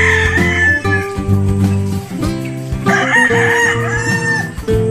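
A gamecock crowing: the end of one crow in the first second, then a full crow of about a second and a half starting about three seconds in, over background music with steady held notes.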